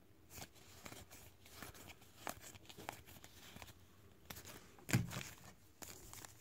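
Topps trading cards being flicked through by hand: faint slides and clicks of card stock, with one louder tap about five seconds in.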